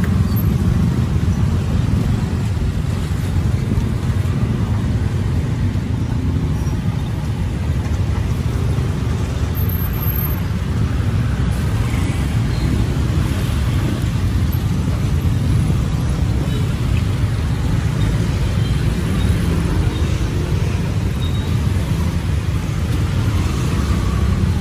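Steady road traffic noise: a continuous low rumble of passing vehicles, with no distinct single event.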